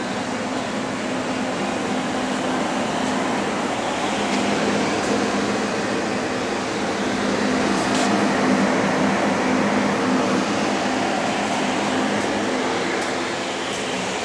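Steady machinery hum with an even hiss, from a powered-up Tsugami BS-20II CNC Swiss lathe; the hum swells slightly midway.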